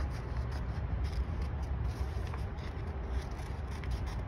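Scissors cutting paper: a string of faint, irregular snips with paper rustling, over a steady low hum.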